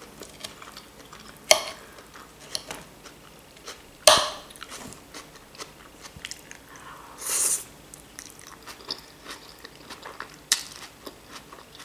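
Close-up chewing and crunching of fresh salad: lettuce, cucumber and raw vegetables, with soft mouth noises. A metal fork clicks against the plate a few times, loudest about four seconds in, and a brief hiss comes about seven seconds in.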